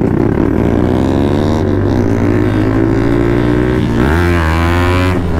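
Motorcycle's single-cylinder engine, a KTM Duke, pulling away and accelerating through the gears: the pitch drops at a gear change about two seconds in and again about four seconds in, then climbs.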